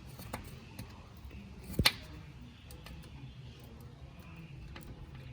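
A sharp click a little under two seconds in, with a few faint ticks: a flat-head screwdriver pushing a drilled-out metal rivet body out of the plastic door panel.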